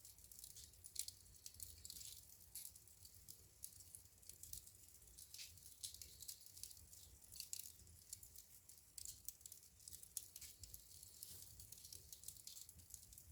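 Wood fire crackling in a fireplace: soft, irregular pops and snaps of burning logs, several a second, over a faint low rumble.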